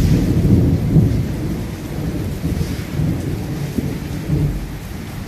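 Heavy rain falling on a paved courtyard, with a low rolling rumble of thunder that is loudest at first and fades away over the next few seconds.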